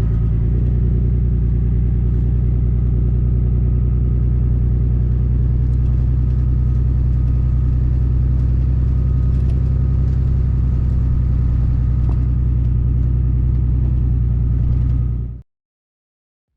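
Engine running steadily with a deep, even hum, cutting off suddenly near the end.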